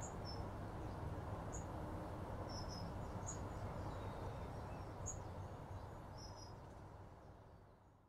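Small birds giving short, high chirps every second or so over a low, steady outdoor rumble, all fading out near the end.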